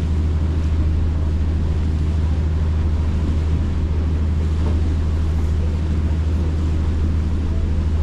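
Sightseeing cruise boat's engines running with a steady low hum, heard on deck with wind on the microphone.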